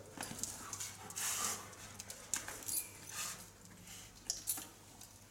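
Quiet scuffing footsteps of a handler and a dog walking together at heel, with a few soft hissing scuffs about a second in and again about three seconds in.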